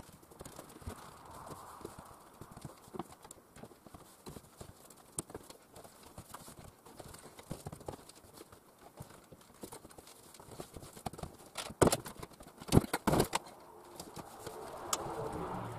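Scattered knocks and taps from hand work on the container's fittings, with a quick run of louder knocks about twelve to thirteen seconds in.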